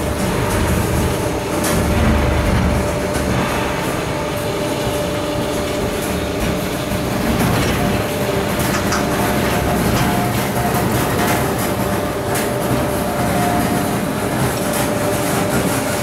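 Motorized clamshell grab running as its two steel jaws slowly close. A steady machine hum holds one tone throughout, and a second, slightly higher tone joins from about halfway through for several seconds.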